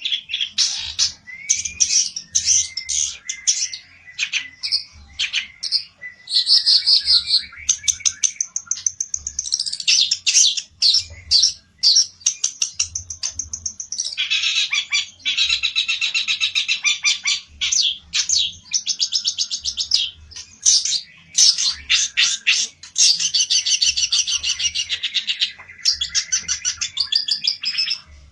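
A songbird, called a pelentet by Indonesian bird keepers, singing a long, fast run of loud chattering trills and buzzy phrases with only short pauses. This is the heated song of a bird worked up to challenge a rival.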